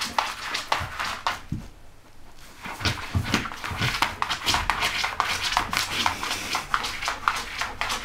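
A dog digging and scratching with its claws: quick, irregular scratches, with a short lull about two seconds in.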